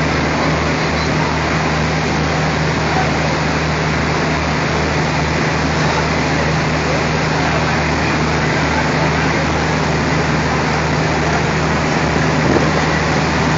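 Diesel locomotive's engine running at low power as it rolls slowly along the platform track, giving a steady low drone under a constant wash of noise.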